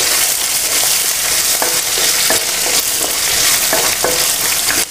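Sliced shallots, green chillies, cashews and dals sizzling in hot ghee in a nonstick kadai, sautéed just until the shallots wilt. A wooden spatula stirs them, with a light scrape or tap against the pan about every half second.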